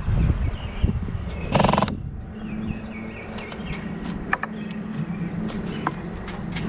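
Small birds chirping outdoors over a steady low hum, with a loud, brief harsh buzzing sound about a second and a half in and a couple of light knocks later on.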